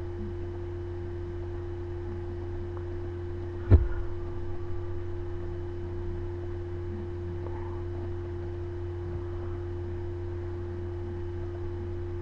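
Steady low electrical hum with a fainter, higher steady tone above it. One sharp knock about four seconds in.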